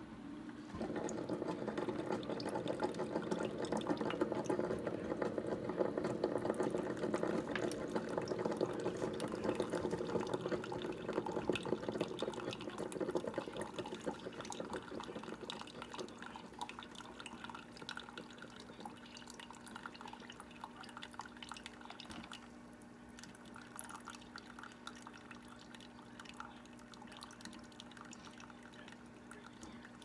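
Ninja Specialty Coffee Maker brewing over ice: a stream of hot coffee runs and splashes into a plastic cup of ice, over a steady low hum. The flow starts about a second in and grows quieter from about halfway on.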